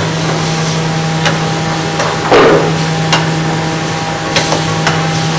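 Metal spoon knocking and scraping against a frying pan as daal is stirred and fried, a few sharp clacks with one louder scrape about two seconds in, over a steady machine hum.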